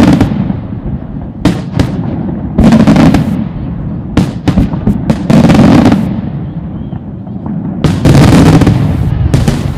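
Aerial firework shells bursting in quick succession: a string of loud bangs, several only a fraction of a second apart, over a continuous low rumble.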